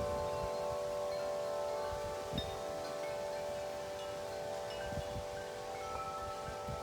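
Wind chimes ringing in gusty wind, several tones sounding together and sustaining, with a fresh higher note struck near the end. Gusts of wind rumble on the microphone underneath.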